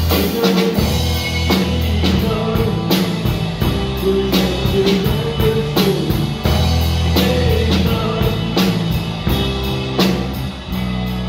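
A small rock band playing live: electric bass and guitar over a steady drum beat, about three strokes every two seconds, with the bass moving between held notes.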